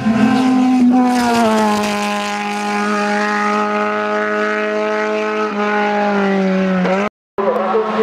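Racing saloon car's engine running hard at high revs as the car passes and drives away up the course; its note drops about a second in, then holds a steady pitch that sinks slowly. The sound breaks off abruptly for a moment near the end.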